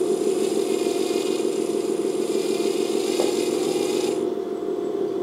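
RC crawler's electric motor and gearbox whirring as the wheels are driven in four-wheel drive, over a steady low hum. The whir cuts off suddenly about four seconds in.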